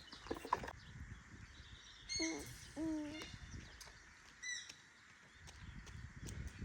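Birds chirping: short high calls about two and four and a half seconds in, with two brief lower, sliding calls around two to three seconds in.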